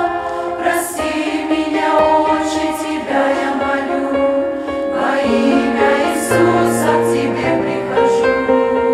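Church choir singing a Russian-language hymn, holding chords that shift every second or two, with crisp sibilant consonants here and there.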